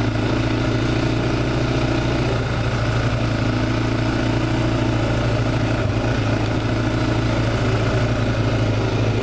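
Honda 400EX ATV's single-cylinder four-stroke engine running at steady revs, its note holding an even pitch throughout.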